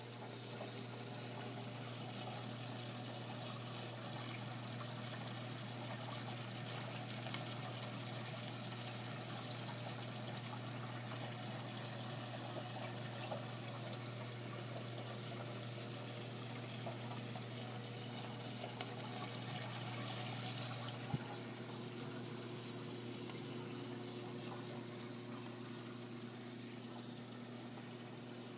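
Water pouring and trickling through a reef aquarium's sump, over a steady low hum from the pumps. About three quarters of the way through there is a click, and the splashing hiss becomes fainter.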